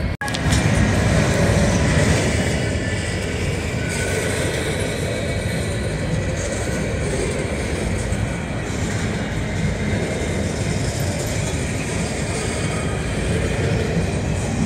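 Covered hopper cars of a freight train rolling past at close range: steady noise of steel wheels running on the rails. A momentary break in the sound right at the start.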